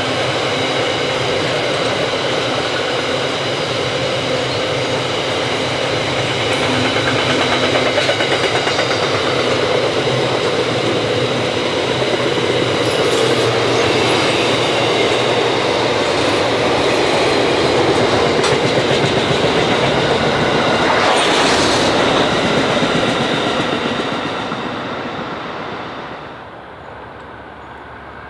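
Loaded freight wagons carrying steel coils rolling past on the track: a steady rumble of wheels on rail with thin, high squealing tones over it. The sound dies away over the last few seconds.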